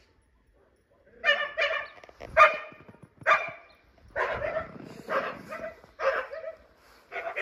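A dog barking repeatedly in short barks, starting about a second in.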